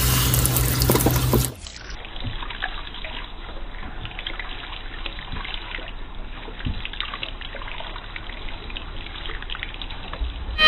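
Water from a hand-held sink sprayer running steadily over a baby in a bath seat. A louder rush of sound cuts off about a second and a half in, leaving the softer, even spray.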